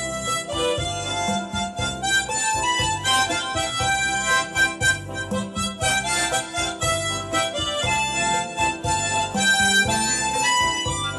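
Instrumental music: a melody line of stepping held notes over a regular, pulsing bass beat.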